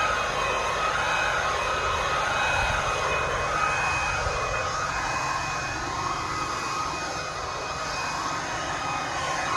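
Handheld battery-powered leaf blower running steadily: a rush of air with a high, even motor whine.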